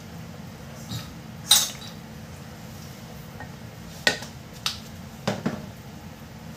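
A wooden spoon stirring sauce in a stainless steel pot, knocking against the pot's side about six times; the loudest knock comes about a second and a half in, and several more follow close together near the end.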